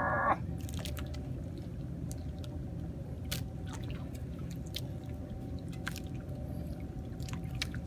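Steady low rumble aboard a small outrigger fishing boat, with water lapping and scattered sharp clicks from the rod and reel gear while a fish is being fought; a brief buzzing tone sounds in the first half-second.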